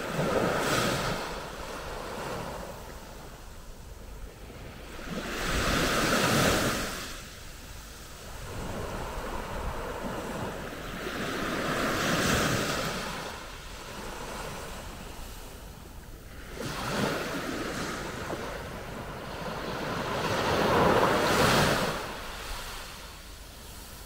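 Small, calm Mediterranean waves washing onto the beach, each one swelling to a hissing rush and then falling away, about five times at intervals of five or six seconds.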